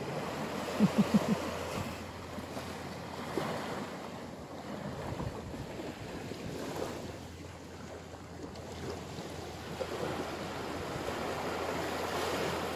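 Small waves lapping and washing up on a sandy beach, the wash rising and falling in swells, with wind on the microphone. Four quick low bumps about a second in.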